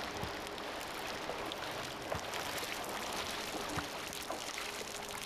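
Rubber waders sloshing and splashing through shallow river water as two people wade toward the bank, with a few small knocks along the way.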